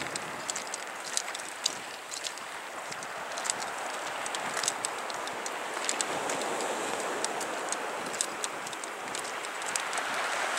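Sea waves washing against a rocky shore: a steady rush of water that swells toward the end, with scattered small sharp ticks and crackles over it.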